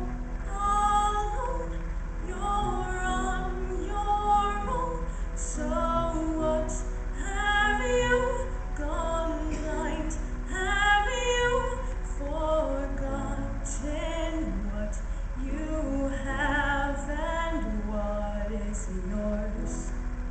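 A teenage girl singing a solo into a stage microphone, her voice carried through a PA, in held, gliding notes.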